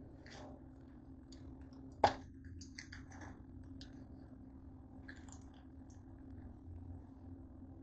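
A single sharp knock about two seconds in, with faint scattered clicks and rustling around it over a low steady hum.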